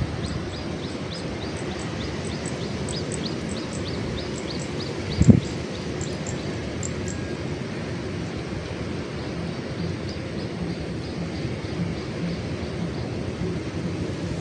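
Wind rumbling on the microphone, with a bird's short high chirps repeated about three times a second through the first half and more faintly later. One dull thump about five seconds in.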